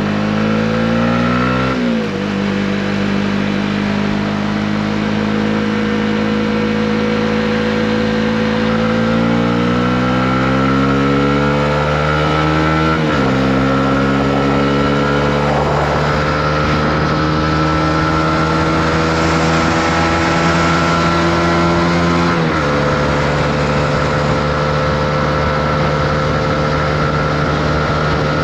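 Honda CB125R's single-cylinder four-stroke engine under way, its pitch climbing as it accelerates and dropping sharply three times as it shifts up: about two seconds in, near the middle, and about three quarters of the way through. It runs steadily after the last shift.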